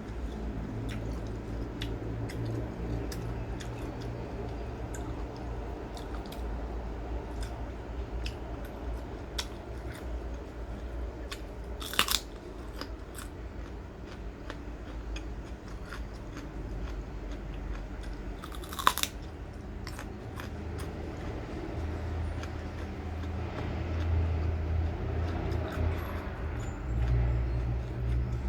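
Close-up chewing and crunching of crisp food, with many small crunches and two loud crisp bites, one about twelve seconds in and another about seven seconds later.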